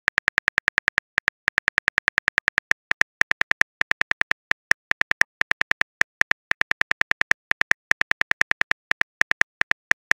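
Phone keyboard click sounds: a fast, even run of short, sharp clicks, one for each letter as a text message is typed out.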